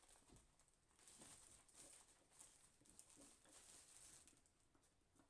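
Near silence with faint, scattered small clicks and rustles: hands handling the PC case and undoing its side-panel thumb screws.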